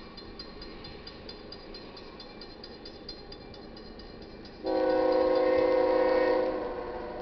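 Grade-crossing bell ringing rapidly as the gate comes down. About four and a half seconds in, the approaching GE ES44AC diesel locomotive sounds its multi-note air horn in one long chord of about two seconds, the loudest sound, which then fades.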